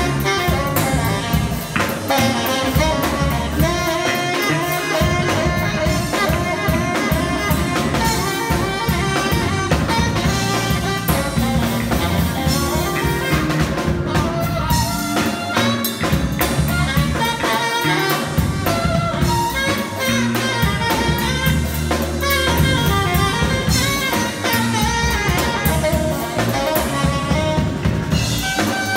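Live band playing with a tenor saxophone leading over keyboard, bass guitar and drum kit, in a jazzy style.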